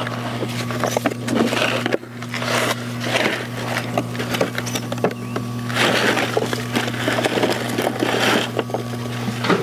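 Rocks and soil tipped from a plastic bucket onto a wooden pallet, clattering and scraping in repeated bursts. A steady low hum runs underneath.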